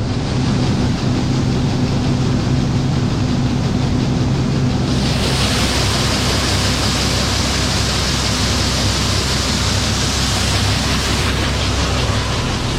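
A combine harvester running in the field, a steady machine drone. About five seconds in a louder rushing hiss joins it and eases off near the end.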